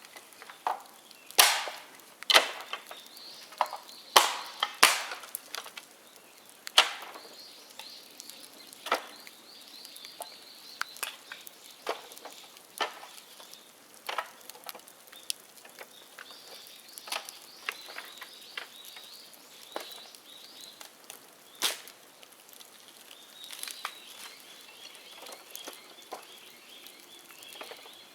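Bonfire of dead bamboo crackling, with irregular sharp pops; the loudest few come in the first seven seconds and another about three-quarters of the way through.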